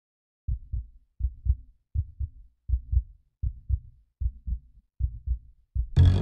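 A heartbeat sound: low double lub-dub thumps, eight beats at about 80 a minute. Just before the end, music comes in loudly.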